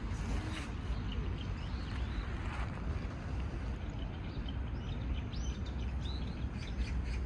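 Small birds chirping, short arched calls repeated several times and more often in the second half, over a steady low rumble.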